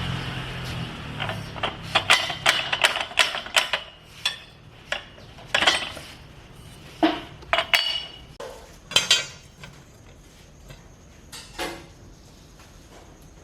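Irregular metallic clinks and knocks of metal objects being handled, each with a short ring, coming in quick clusters for the first several seconds, then a few scattered ones.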